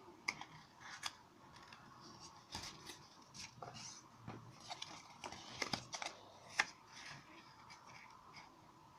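Cardboard and paper being handled and worked at a table: faint rustling with scattered sharp clicks and ticks, a few louder ones spaced irregularly.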